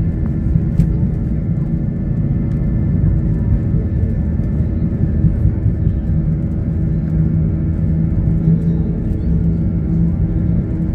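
Airbus A320neo cabin during the take-off roll: a loud, steady low rumble of the jet engines and the wheels on the runway, with a steady hum over it that grows a little stronger past the middle.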